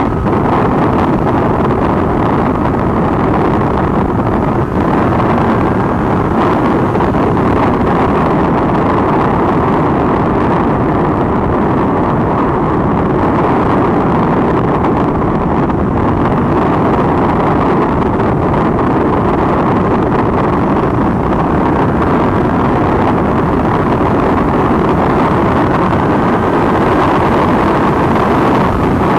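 Steady wind rushing over the microphone of a Triumph Daytona 675 rider at speed, with the bike's inline three-cylinder engine running under it. The wind noise is heavier because the helmet's chin curtain, which helps cut the wind, is missing.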